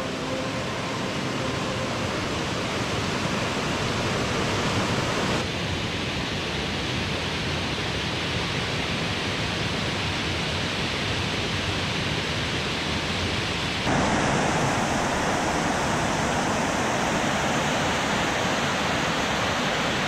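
Waterfall pouring into a rock pool: a steady rush of falling water, shifting abruptly in tone and loudness about five seconds in and again near fourteen seconds.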